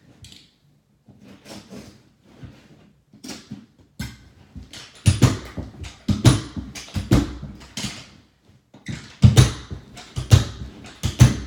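Carpet knee kicker being driven with the knee, a series of loud thumps about one a second starting about five seconds in, stretching the carpet onto the tack strip. Quieter shuffling and handling noises come before.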